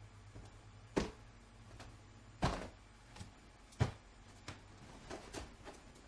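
A barn owl pouncing on towels as if they were prey, giving a string of soft thumps and rustles: three louder thumps spread through the first four seconds, then several lighter ones.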